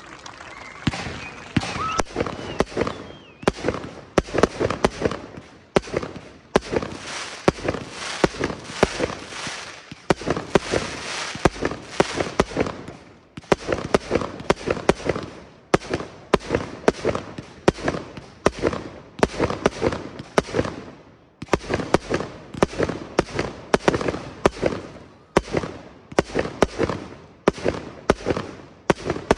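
Aerial fireworks display: shells launching and bursting in rapid, dense volleys of bangs and crackle, starting about a second in and coming in waves.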